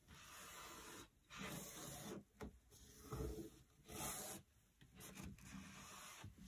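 Cloth rubbed in strokes over an oiled wooden cutting board, wiping off excess mineral oil: a series of faint swishes, each up to about a second long, with short pauses between.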